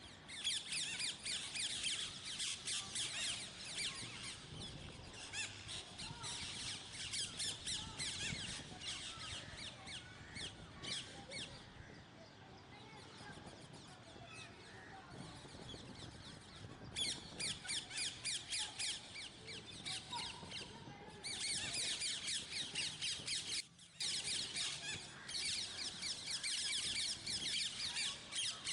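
Many parrots chattering and squawking together in rapid, high calls. The calls ease off for a few seconds in the middle and stop briefly late on.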